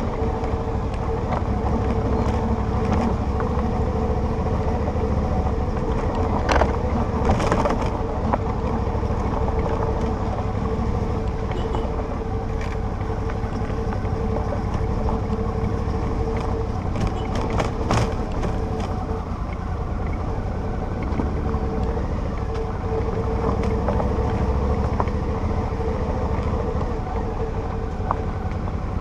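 Touring motorcycle's engine running at a steady speed over a rough gravel road, with a constant low rumble. A few sharp knocks come through about six to seven seconds in and again at about eighteen seconds.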